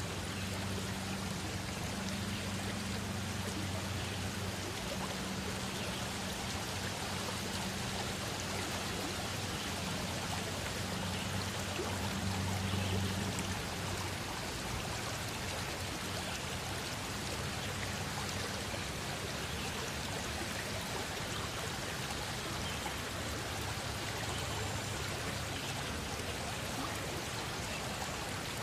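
Steady rushing noise like running water, even throughout, with a low hum under it for roughly the first half.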